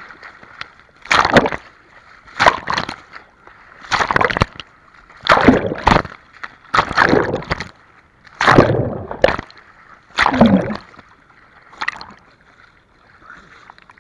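Seawater splashing and sloshing over a waterproof action camera at the water's surface, in about ten loud surges roughly every second and a half as the camera dips in and out of the water.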